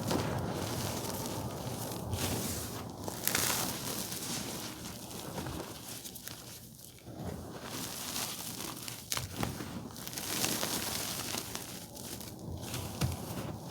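Blue-dyed reformed gym chalk being crushed and crumbled, a continuous dry crunching full of small sharp cracks with a few brief pauses. There is a low gusting rumble of wind on the microphone underneath.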